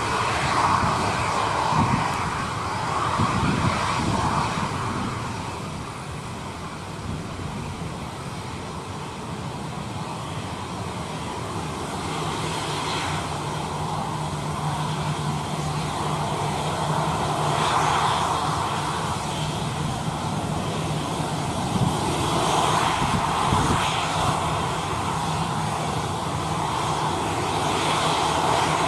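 Airliner jet engines running near an airport runway, their noise swelling and fading over several seconds, with gusts of strong wind buffeting the microphone.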